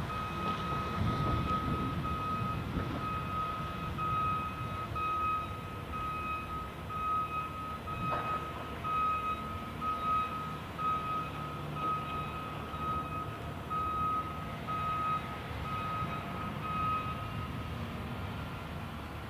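Reversing alarm on a heavy construction machine: a steady run of evenly spaced single-pitch beeps that stops near the end, over the low rumble of diesel engines.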